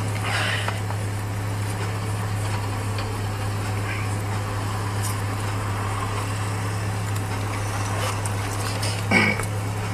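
Car engine idling steadily with a low hum, heard from inside the stopped car's cabin. A brief louder sound cuts in once near the end.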